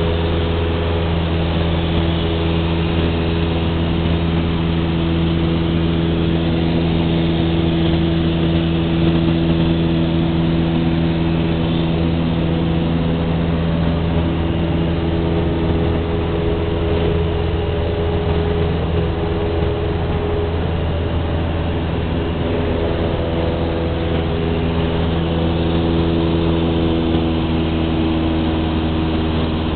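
Propeller light aircraft's engine heard from inside the cabin in flight: a loud, steady drone with a constant low pitch.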